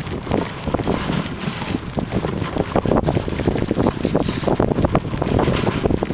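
Dog sled running over a snowy trail: the runners hiss and scrape on the snow while wind buffets the microphone, with many small knocks and rattles as the sled jolts.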